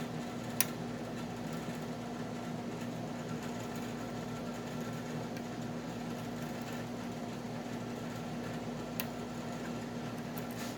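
Steady mechanical hum in the room, with a few small sharp clicks from a lock pick working the pin stacks of a Wilka euro cylinder under heavy tension: one just after the start, another near the end.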